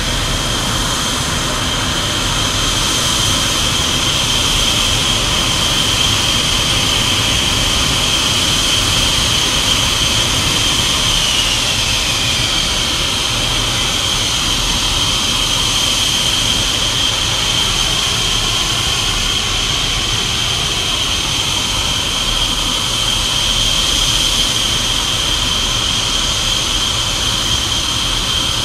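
Su-24's twin AL-21F-3 turbojet engines running on the ground: a steady high-pitched whine over a broad rushing noise. About eleven seconds in, a second whine slides down in pitch, and near the end the main whine begins to fall.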